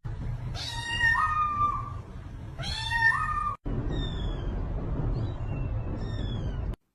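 Cat meowing: two long, loud meows that step up in pitch partway through, then three fainter, shorter, higher meows that fall in pitch. The sound cuts off abruptly just before the end.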